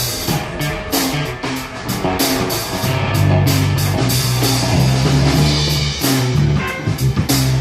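Live blues-rock band playing: electric guitar over a drum kit keeping a steady beat, with held low bass notes underneath.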